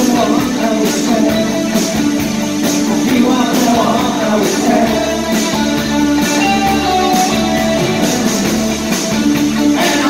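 A new-wave rock band playing live through a club PA: electric guitars, keyboard synth and a drum kit keeping a steady beat.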